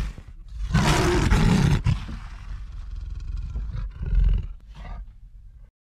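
Intro sound effect: a loud animal roar that swells about a second in, then fades away in a long echoing tail and cuts off abruptly near the end.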